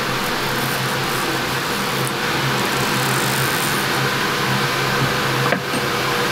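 Steady whir of a kitchen ventilation fan with a low, even hum.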